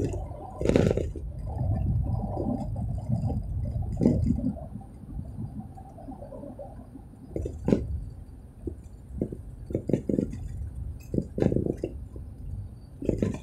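Low, uneven rumble of a car being driven, heard from inside the cabin, broken by short irregular knocks and clinks, several of them close together in the second half.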